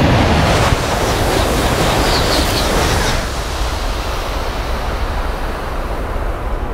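E956 ALFA-X test shinkansen passing at about 350 km/h: a loud rushing noise as it goes by, with a brief high hiss about two seconds in. After about three seconds the rush drops away to a lower, receding rumble.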